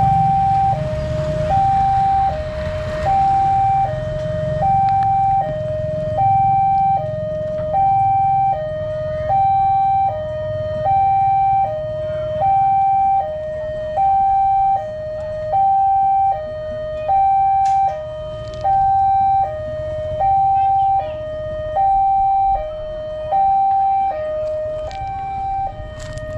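Railway level-crossing warning siren sounding two alternating notes, E-flat 5 and G5, in an even high-low pattern with each note held for under a second. A low vehicle rumble runs under it for the first few seconds.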